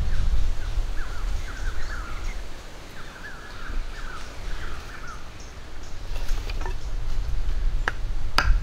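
Small birds chirping in short repeated calls over a steady low rumble. Near the end come two sharp knocks as a wooden stake is hammered into the ground with a piece of wood.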